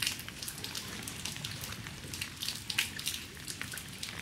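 Rain falling, with many irregular close drops ticking.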